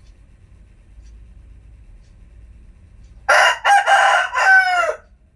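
Rooster crowing once, about three seconds in: a loud cock-a-doodle-doo of several linked notes lasting under two seconds, ending on a drawn-out falling note.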